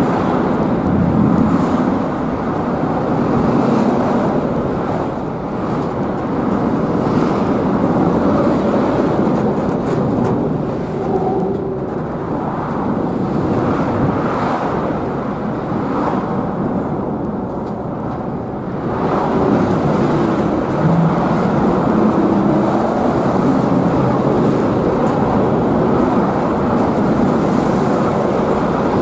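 Steady outdoor rumble and rush from a field recording, with no single clear source. It eases somewhat a little past the middle and picks up again about two thirds of the way through.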